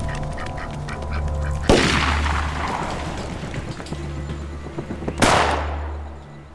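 Two shotgun blasts, about 1.7 s and 5.2 s in, each trailing off in a long echo. Before the first shot, a bird calls in quick repeated notes, about four a second.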